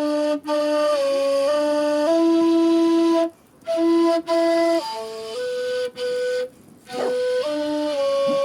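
A flute-type wind instrument playing a slow melody of held notes that step up and down, with short breath pauses between phrases.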